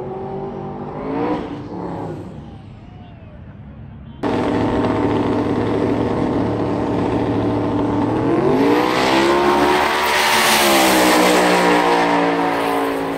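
Twin-turbocharged Ford Coyote V8 drag car on the starting line, its engine note suddenly much louder about four seconds in, then climbing sharply in pitch as it launches and holding high as it pulls down the strip. A second drag car runs in the other lane.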